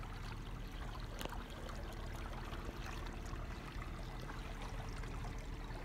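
Lake water lapping and trickling against the hull of an aluminum bass boat, over a low rumble with a faint steady hum. A sharp click about a second in.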